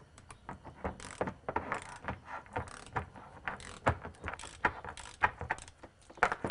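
Ratchet wrench clicking as it turns a Motion Pro chain breaker's press screw, pushing a pin out of a motorcycle chain link. A run of sharp clicks, a few a second, with short breaks between strokes.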